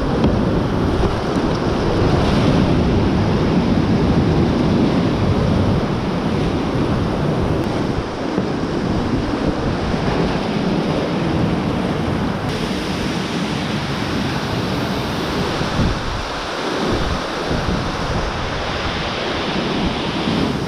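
Whitewater rapids rushing loudly around a kayak, heard close up from the boat, with the churning water and spray buffeting the microphone. The rush is loudest in the first several seconds, then eases slightly.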